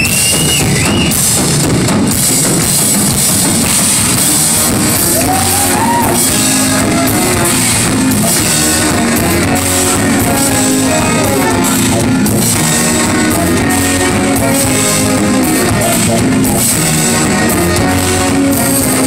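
Live band music: a saxophone playing a melodic solo line with a few upward slides, over a drum kit and a low brass bass line.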